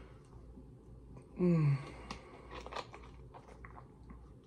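A short hummed 'mm' falling in pitch about one and a half seconds in, a tasting reaction, amid faint small clicks and crunches of eating.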